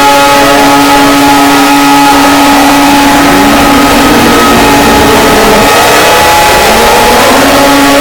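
Loud electronic emergency-alert alarm: a steady chord of held tones, giving way through the middle to several siren-like tones sweeping up and down in pitch, before the held chord returns near the end.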